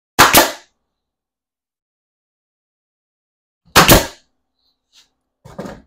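Loud, sharp bangs from work on a wooden benchwork frame. There is a quick double bang at the start, another about three and a half seconds later, and softer knocks near the end.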